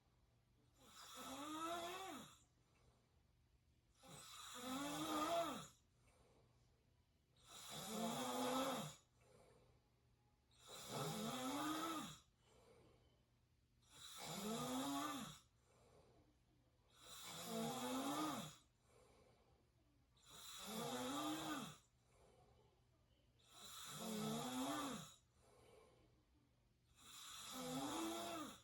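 A person snoring through the open mouth in a slow, even rhythm: about nine snores, one every three seconds or so, each a pitched rasp that rises and then falls, with quiet gaps between breaths.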